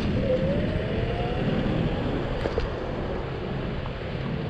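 Zero 9 electric scooter riding along, with wind rumbling on the chest-mounted camera's microphone and tyre noise. The scooter's motor adds a faint whine that rises in pitch over the first second or so and then holds steady.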